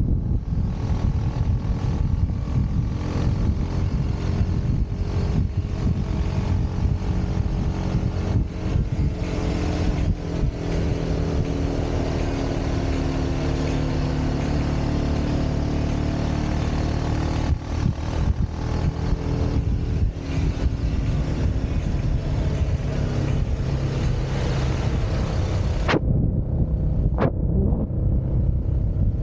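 Motorcycle engine running under way, its pitch rising and falling with the throttle, over heavy wind noise on the microphone. Near the end the wind noise drops away and two sharp clicks sound.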